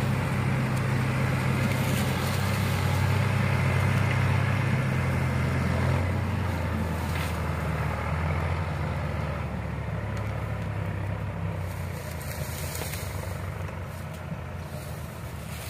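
Diesel engines of a tractor and a JCB backhoe loader running under heavy load as they pull and push a loaded sugarcane trolley. The low engine note holds steady, shifts about halfway through, then fades as the machines move away.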